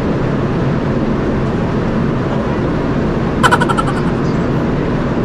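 Steady low rumble of a large ship's machinery on deck. About three and a half seconds in, a brief high rattle of rapid pulses sounds over it.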